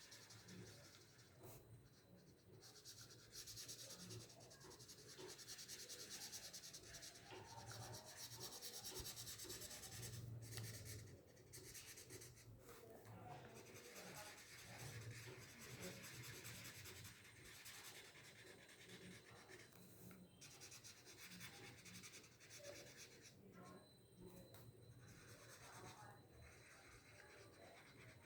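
Faint scratching of a felt-tip marker rubbed back and forth across paper, colouring in a large area in quick, continuous strokes.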